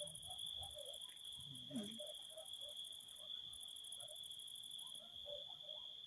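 Crickets chirping in a night chorus: one steady, unbroken high trill, with a second, higher and rapidly pulsing trill that drops out now and then.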